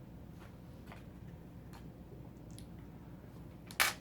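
Faint handling of booster-pack contents, Dice Masters dice and cards: a few soft clicks, then one short, louder rustle near the end.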